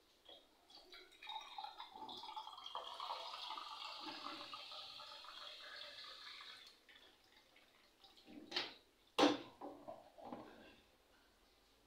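Water running for about five seconds, then a few sharp knocks, the loudest about nine seconds in.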